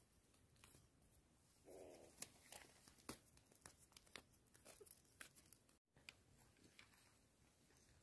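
Near silence, with faint scattered clicks and short rustles of hands freeing a netted bird on gravel, and a brief faint pitched sound about two seconds in.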